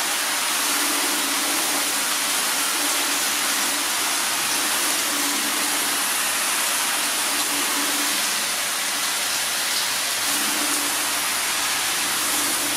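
Garden hose spray nozzle on a soft mist setting, hissing steadily as it showers water onto a car's painted bonnet.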